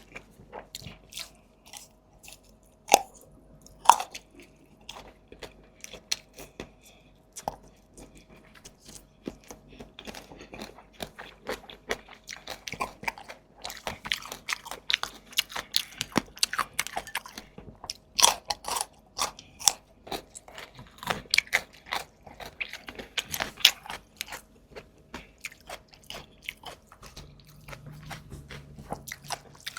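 Close-miked eating: steady chewing and crunching of food with frequent sharp bites and wet mouth clicks, the two loudest bites coming about three and four seconds in.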